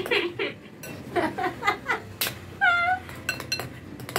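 Several short, high-pitched mewing cries, one about two-thirds of the way through with a dipping pitch, and a sharp clink of a steel spoon against a ceramic bowl a little before it.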